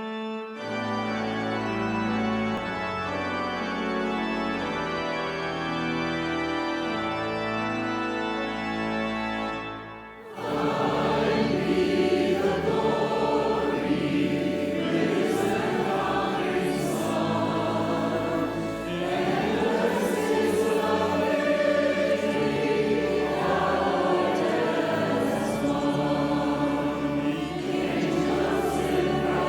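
Church organ playing sustained chords. After a short break about ten seconds in, a choir starts singing a hymn with organ accompaniment.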